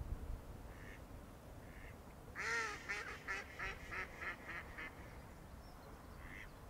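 A duck quacking: a run of about eight quacks, the first the longest and loudest, then shorter ones at about three a second.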